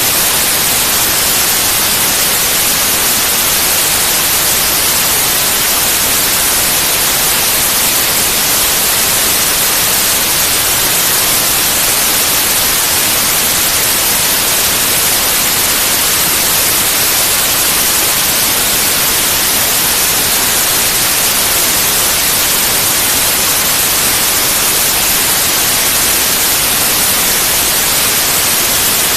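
Steady, loud white noise: an even, unbroken hiss across all pitches, strongest in the highest ones, with no changes or events.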